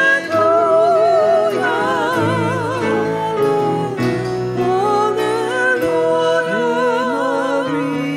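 A vocalist singing a slow hymn in long held notes with a wide vibrato, accompanied by piano.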